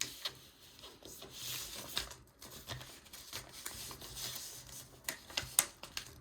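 A sheet of printer paper being unfolded and folded: rustling, with stretches of rubbing as a crease is pressed down and a few sharp crackles near the end.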